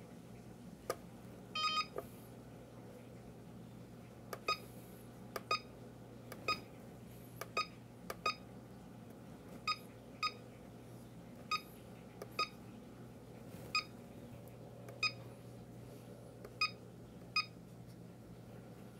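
FMA Cellpro Powerlab 8 battery charger giving a short high beep at each button press, about twenty beeps at irregular half-second to second-and-a-half spacing, with a quick run of rapid beeps near the start, as its menu is stepped through to set up a cell discharge. A faint steady low hum lies underneath.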